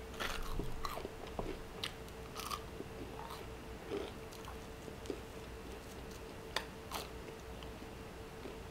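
Biting into and chewing crispy chicharrón, a thick slab of fried pork belly. Quiet, irregular crunches come through the chewing, the clearest near the start and again about two-thirds of the way through.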